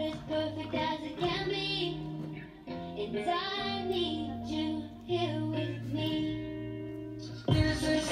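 A song with singing over held bass notes, played for the dance routine. It gets suddenly louder near the end as a new section of the song starts.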